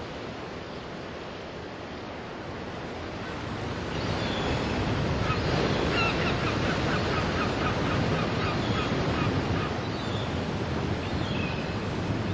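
Sea waves breaking on a shore, a steady surf noise that grows louder about four seconds in. Gulls call in a run of short, quickly repeated cries through the middle and again near the end.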